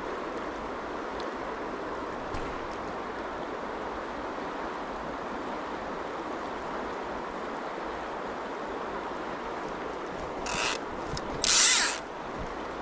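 River water running steadily, then near the end two short bursts of ratchet clicking from a salmon fly reel's click-and-pawl drag, the second louder and longer.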